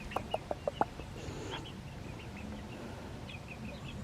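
Young chickens, about eight weeks old, making soft short calls: a quick run of about five notes in the first second, then faint high chirps through the rest.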